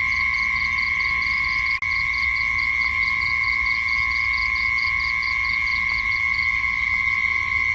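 Night insect chorus: a steady high-pitched trill with a lower steady tone beneath it, and a higher chirp repeating about four or five times a second that stops near the end. The whole sound drops out for an instant about two seconds in.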